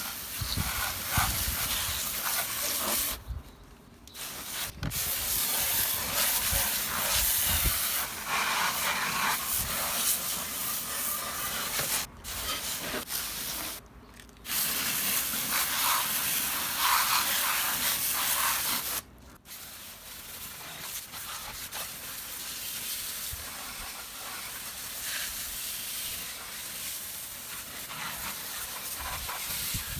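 Gas-powered lawn mower running while cutting grass, heard as a steady hiss. It drops out abruptly a few times and is quieter after about two-thirds of the way through.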